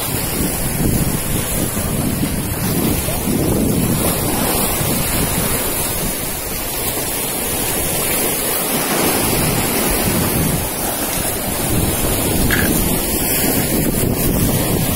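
Strong wind buffeting the microphone over surf breaking on the beach: a loud, steady rush that swells and eases in gusts.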